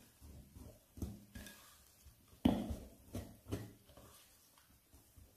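Metal wire whisk stirring thick cake batter with raisins in a glass bowl: irregular sloshing strokes and taps against the bowl, with one louder knock about two and a half seconds in.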